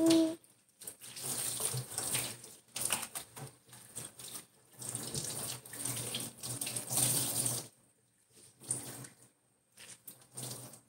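Water running and splashing, as from a kitchen tap, in uneven spurts with short breaks. It stops about eight seconds in, leaving only a few faint, brief sounds.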